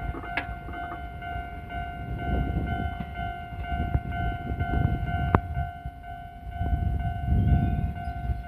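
Japanese railway level-crossing warning bell ringing in an even, repeating two-tone ding, about two strokes a second, signalling that a train is approaching. A low rumble lies beneath it, and there is one sharp click a little past halfway.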